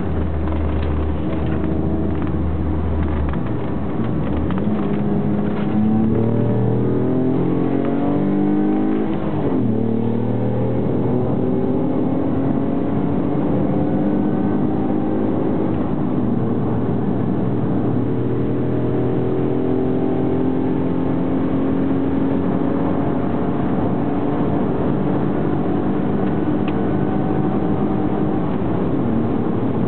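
Mk2 Ford Mondeo ST's 2.5-litre V6, with pod filter, headers and full exhaust, heard from inside the cabin under hard track driving. The engine note climbs steadily from about five seconds in, drops sharply once near ten seconds, then holds high and keeps rising slowly, dipping briefly once.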